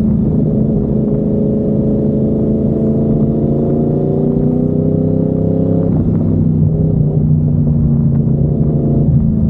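Yamaha MT-10's crossplane inline-four running through an SC Project 70 mm carbon-titanium exhaust at low road speed. Its engine note drifts slowly in pitch, then breaks and changes about six seconds in and again near the end as the revs change.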